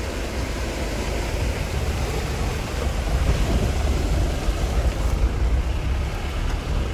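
Jeep driving through a shallow river crossing: a steady low engine rumble under a continuous rushing of water.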